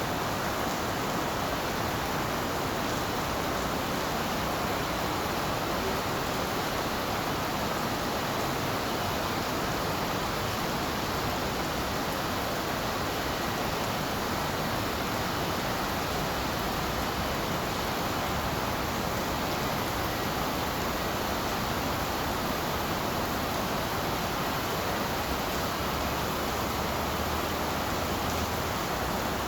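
Tropical rain falling in a steady, even hiss.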